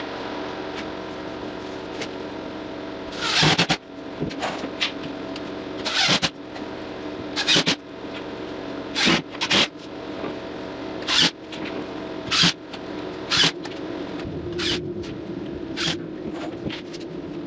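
Steady machine hum, with about nine short, sharp scraping noises at irregular intervals from drywall being worked.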